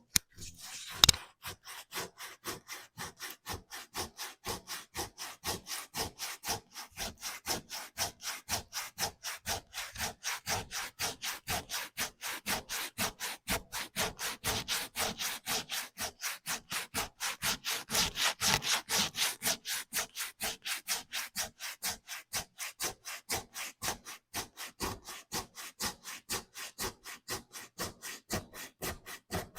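Hand sanding wooden cabinet doors: sandpaper rubbed back and forth over the wood in quick even strokes, about three a second. There are a couple of sharp knocks in the first second or so.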